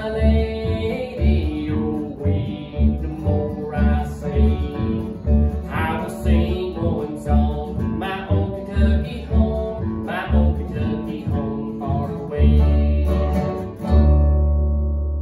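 Acoustic guitar and upright bass playing a country-bluegrass tune with a singing voice, on a steady plucked beat. It ends on two long held chords that ring out.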